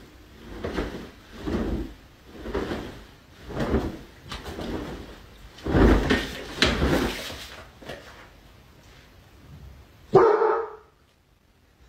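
A dog barking repeatedly, about once a second, then a single louder bark about ten seconds in.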